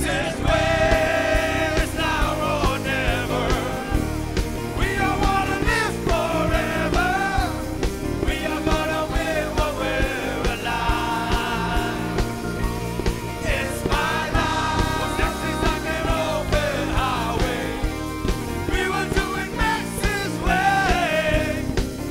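Rock song with singing over a full band accompaniment.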